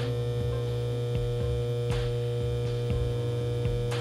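Rewound microwave oven transformer humming steadily under heavy load as high current heats a screw clamped across its secondary leads to red hot, with a few sharp clicks about two seconds apart.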